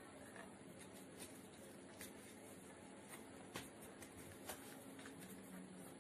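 Faint rustling of origami paper being folded and creased by hand, with a few sharp paper ticks about two, three and a half and four and a half seconds in, over a low steady hiss.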